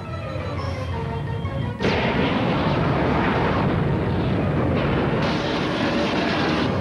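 Cartoon explosion sound effect over dramatic background music: a sudden loud blast about two seconds in, then a sustained rumble.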